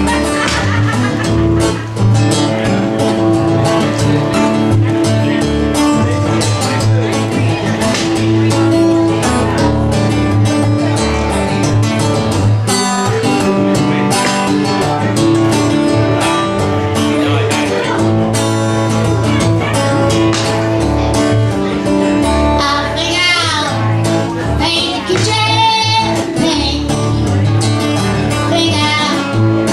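Live Americana song: guitar playing steadily, with a woman's singing voice, wavering in vibrato, rising over it about two-thirds of the way through.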